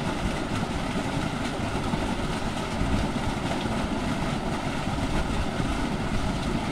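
Stream water rushing steadily into a small muddy pool, a continuous even rush with no breaks.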